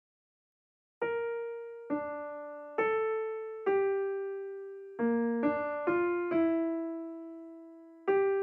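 Background music: a slow piano melody of single notes, each struck and left to fade, starting about a second in.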